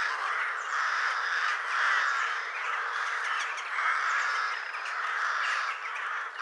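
Crows cawing over and over, harsh calls coming roughly once a second.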